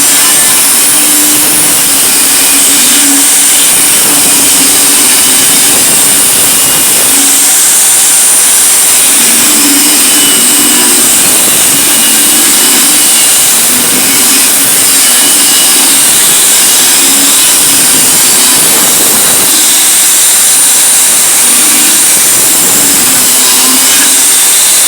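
Electric power tool running continuously while cutting the metal casing of a microwave, a loud steady whine and hiss whose low hum wavers as the load changes.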